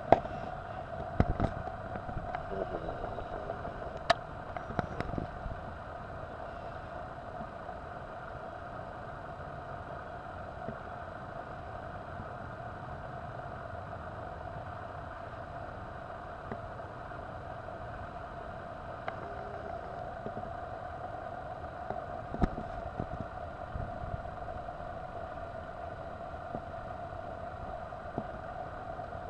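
Steady mechanical hum. A few short clicks and knocks come in the first five seconds and again around twenty-two seconds in.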